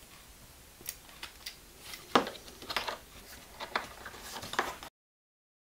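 Hand tap being turned into a hole in a 3D-printed plastic part, cutting a thread: a string of irregular small clicks and short scraping crackles, the loudest a little after two seconds in. The sound cuts off abruptly near the end.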